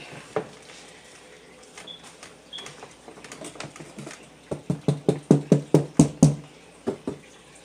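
A hand knocking on the panels of an aluminium-framed rolling makeup train case: a quick run of about nine sharp knocks starting about halfway through, with a few fainter handling clicks before it.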